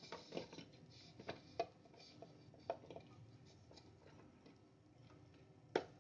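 Faint scattered taps and clicks of boiled chicken pieces being tipped from a glass bowl into a food processor's plastic chopper jar, with a sharper knock near the end.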